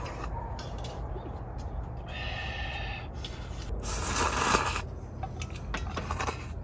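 A person slurping noodles and broth, twice, the second slurp longer and louder, about four seconds in.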